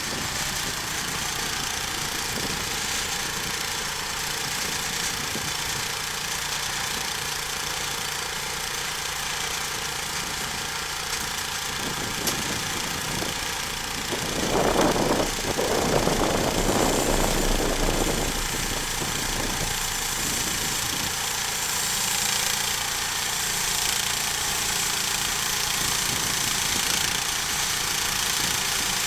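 Homemade sawmill's engine running steadily, with a louder, rougher stretch of about three seconds midway through.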